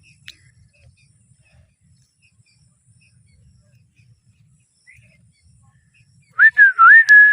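A parrot giving a few faint chirps, then near the end a loud, clear whistle lasting about a second that dips down and back up in pitch twice before holding steady.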